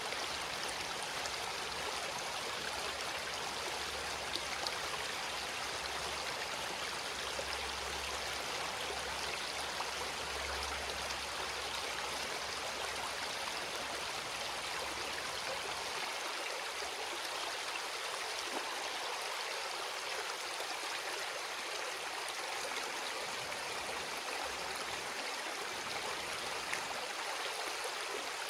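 River running low and calm after little rain, flowing with a steady, even rush of water.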